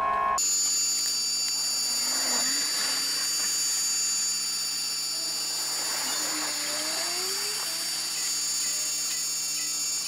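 Japanese railway level-crossing alarm ringing steadily, with a faint rising whine from an approaching train a little past the middle.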